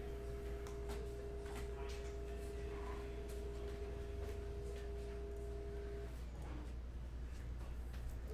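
A steady tone with a fainter, higher tone above it, over a low hum; the tones stop about six seconds in.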